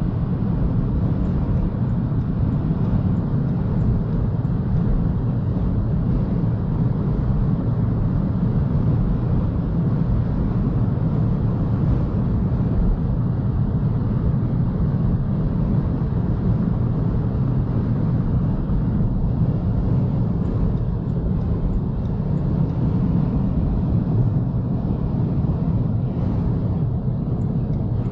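BMW i3 electric car driving at speed on the motorway: a steady, low rumble of tyre and wind noise, with no engine note.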